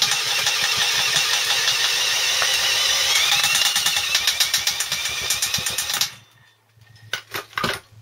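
Stripped-down Honda CBF125 engine turned over on the bench by an electric drill on the crankshaft, with a fast, even knocking that the owner puts down to the connecting rod. The drill stops suddenly about six seconds in, followed by a few separate clunks.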